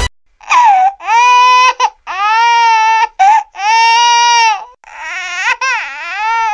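Infant-like crying: about six high-pitched wails in a row, most held around a second, the last one quavering up and down.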